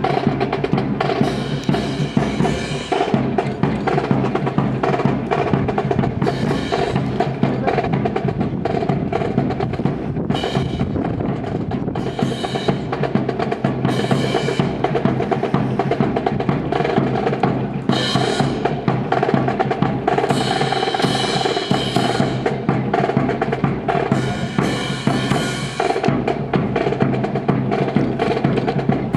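Drum-led music, with snare and bass drum keeping a steady beat over held tones.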